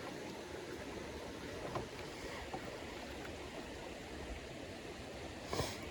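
Fast river current rushing past: a steady, even wash of flowing water, with one short rustle or knock about five and a half seconds in.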